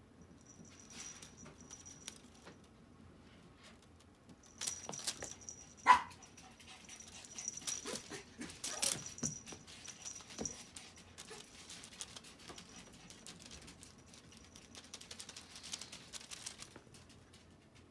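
Russian Blue kitten playing with a feather wand toy on a rug: scuffling and rustling with scattered light clicks as it pounces and bats. There is one sharp, louder sound about six seconds in.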